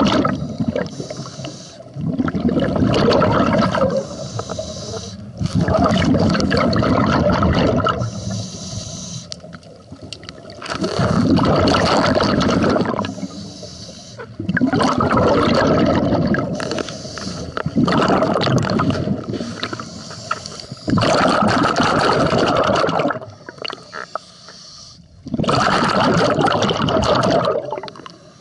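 Scuba divers' regulators venting exhaled air, heard underwater: a loud bubbling rush about every four seconds, with quieter stretches between exhalations.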